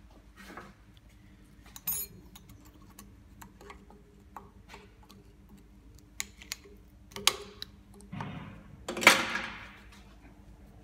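Scattered small metallic clicks and clinks of hand tools and steel parts being handled on a metal workbench, with a brief, louder scraping sound about eight to nine seconds in.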